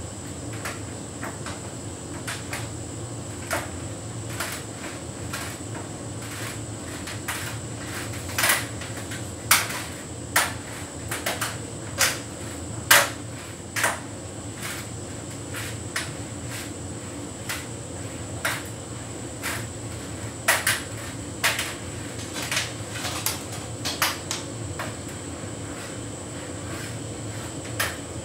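Hotpoint heat pump tumble dryer running on its synthetics cycle: a steady hum with a faint high whine, and irregular clicks and knocks from the tumbling load hitting the drum, most frequent in the middle.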